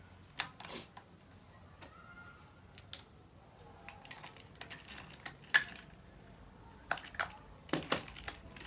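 Small plastic clicks and taps as the battery of a toy remote-control stunt car is pushed into place and its battery cover is worked shut by hand. One sharper click comes about five and a half seconds in, and several more near the end.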